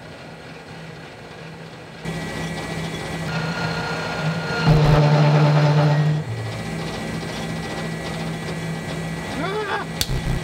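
Metal lathe running, its three-jaw chuck spinning with the cutting tool at the work, over a steady machine hum. It gets louder about two seconds in and is loudest for just over a second midway through. A sharp click comes near the end, as the chuck has stopped.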